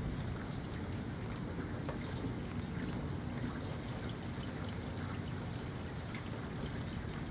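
Stormy wind and rain: a steady rush of wind with scattered raindrop ticks and a low rumble of wind on the microphone.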